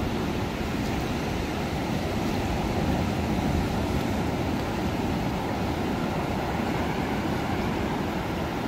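Surf breaking offshore and washing up over wet sand, with wind rumbling steadily on the microphone.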